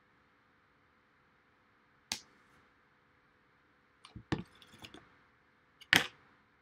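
Sharp taps and knocks of craft items being handled and set down on a work table. A single tap comes about two seconds in, a few light taps follow around four seconds, and the loudest sharp knock comes near the end.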